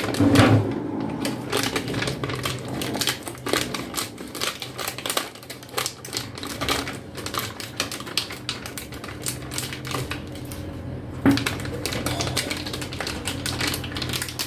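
Packaging of a new hard disk being opened and handled by hand: a dense run of irregular clicks and crinkles, with a knock right at the start and another about 11 seconds in, over a faint steady hum.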